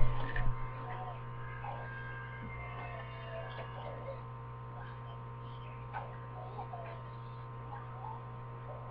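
Steady low electrical mains hum with faint scattered sounds above it. A louder sound at the very start stops about half a second in.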